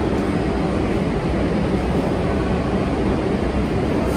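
Subway train running with a steady low rumble and rail noise, even in loudness throughout.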